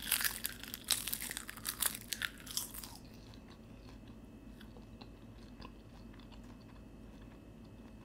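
A person biting and chewing crisp nori seaweed chips: dense crunching for about three seconds, then only faint occasional crunches as the chewing goes on.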